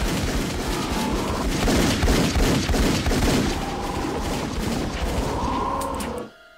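A dense volley of pistol gunfire from a film soundtrack, shot after shot overlapping in a rapid stream, which cuts off suddenly about six seconds in.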